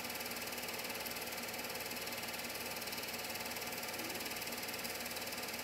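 Film projector running: a steady mechanical whir with a fast, even clatter from the film transport.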